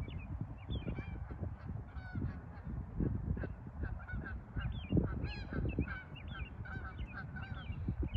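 Birds calling over and over in short, pitched calls, over a constant uneven low rumble.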